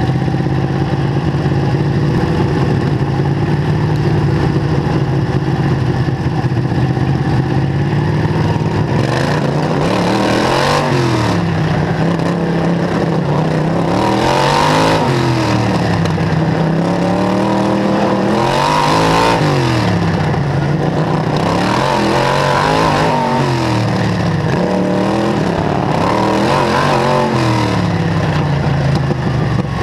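Small dirt-track racer's engine, heard from onboard, running at a steady pitch for the first several seconds. It then revs up and drops back about every four seconds as the machine speeds up and slows around the oval.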